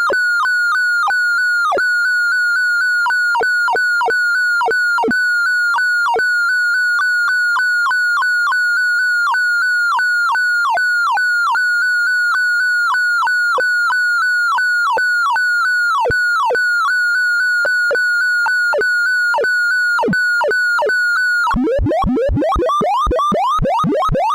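Synthesized sorting-algorithm sonification tones, each pitch standing for an array value being accessed. A steady high tone is broken again and again by quick falling blips. About three seconds before the end it switches to a dense rush of fast rising chirps.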